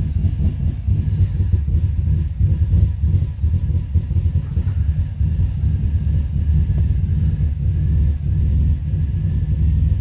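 2005 Subaru Forester XT's turbocharged flat-four engine running with a low, uneven rumble, the rough idle of an engine the owner says is running rich and hesitates when the throttle is opened.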